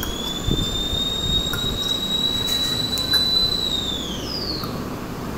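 A high whistling tone that glides up, holds steady for about four seconds, then slides down and stops near the end, over a steady background hiss.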